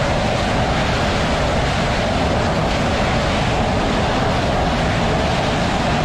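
Dassault Rafale's twin Snecma M88 jet engines running at high power on the carrier catapult, waiting to launch: a steady, loud rushing noise that does not change.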